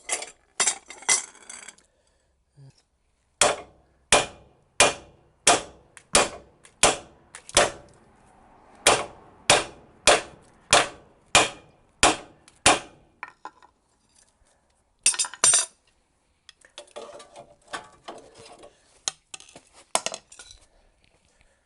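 Hammer blows ringing on steel car suspension parts while freeing a stuck strut: a steady run of about a dozen strikes, a bit more than one a second. Then a quick double strike and some lighter metallic clatter near the end.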